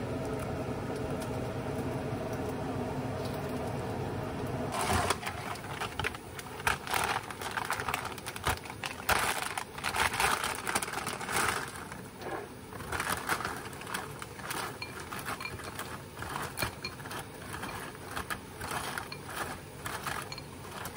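A steady rushing noise for the first five seconds, then a plastic bag crinkling and crisp filled cereal pillows clattering into a ceramic bowl in many small, irregular clicks.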